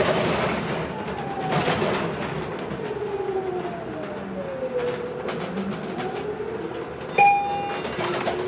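Inside a city transit bus slowing toward a stop: a steady rumble with a drive whine that falls in pitch and then rises again, and a loud short electronic beep about seven seconds in.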